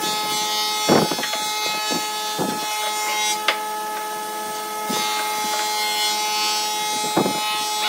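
Pine boards knocking and sliding against each other and the wooden workbench as they are laid edge to edge across pipe clamps, with several separate knocks spread through.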